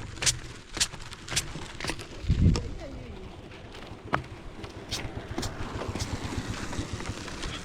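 Footsteps of someone walking quickly, irregular sharp steps with a heavier thud about two seconds in.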